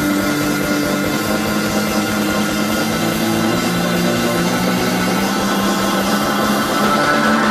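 Instrumental passage of a 1970 British prog-rock record playing from a vinyl LP, with sustained organ chords over bass and a steady drum beat.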